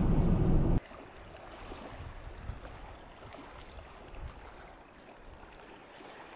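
Low road rumble heard from inside a moving car cuts off abruptly under a second in. It gives way to a faint, even wash of small lake waves lapping on a rocky shore.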